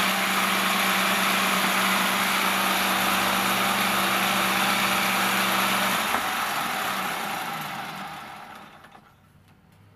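Bench-mounted circular saw running free with no wood in the blade, then switched off about six seconds in; its motor hum sinks in pitch and fades as the blade coasts to a stop.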